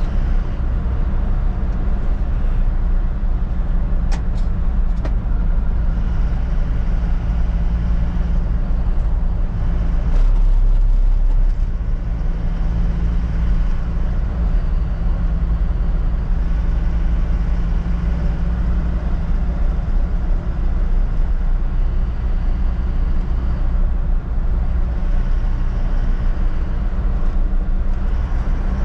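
Isuzu NLR light truck's diesel engine and road noise heard inside the cab while driving, a steady low drone. The low hum grows louder for about a second and a half around ten seconds in, and a few faint clicks come around four to five seconds in.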